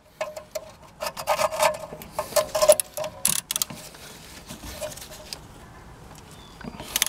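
Ratchet wrench with a T25 Torx bit turning the retaining bolt of a rear wheel speed sensor: a run of rasping clicks and squeaks for the first three or so seconds as the bolt starts to come loose, then fainter, scattered clicks of turning.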